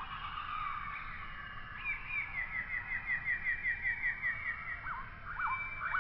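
Bird calls: a fast series of short whistled notes that each slur downward, about five a second, followed near the end by slower notes that rise and fall, over a low background hiss.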